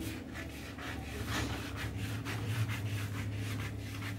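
Scissors snipping through a sheet of pattern paper in a steady run of short cuts, about three a second, over a steady low hum.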